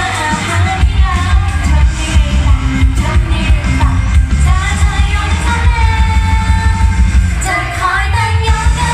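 Pop song played loud over a stage PA: female voices singing into microphones over a backing track with a heavy, steady beat.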